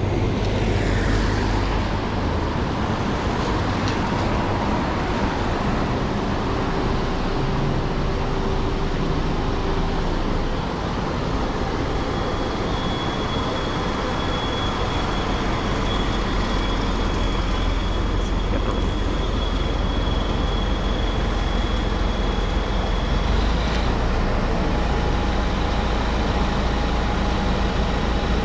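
City street traffic: a steady low rumble of passing vehicles with tyre hiss on wet roads. A thin high whine sounds for about ten seconds in the middle.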